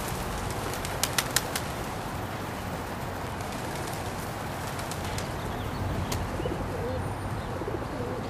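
Feral pigeons flapping their wings as they take off and land, over a steady background hiss. Three sharp clicks come about a second in, and soft pigeon cooing is heard near the end.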